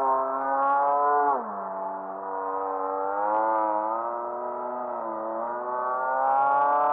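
A radio-controlled model aerobatic plane's motor and propeller, heard while it flies overhead. The pitch drops steeply about a second in as the plane passes or throttles back, then climbs and wavers with the throttle, and rises again near the end.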